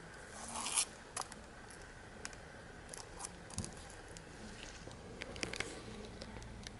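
Scattered light clicks and a short rustle about half a second in, as small hard objects are handled.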